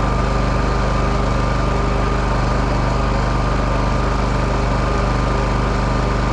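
WEN 56477i 4800-watt inverter generator running steadily: an even engine hum with a thin, steady whine above it.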